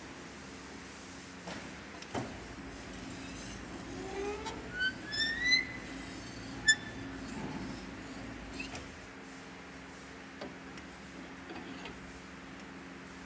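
RBM30HV round bending machine running with a steady low hum as its rollers bend a rectangular steel tube. A rising squeal comes about four to six seconds in, then a sharp click a little after, with a few fainter clicks.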